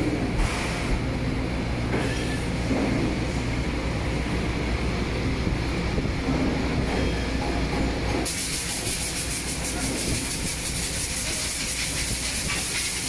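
Powder-coating spray booth running: a steady low mechanical hum with the hiss of compressed air from the spray gun. A sharper, brighter hiss cuts in suddenly about eight seconds in and holds steady.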